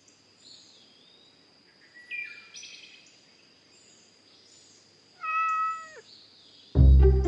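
Birds chirping in short high calls, then a single cat meow about five seconds in, its pitch dropping at the end. Music starts loudly near the end.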